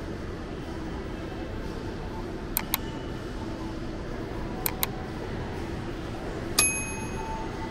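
Mouse-click sound effects, two quick double clicks, then a short ringing bell ding near the end, from an animated like-and-subscribe overlay. Underneath runs the steady hum of a large mall interior.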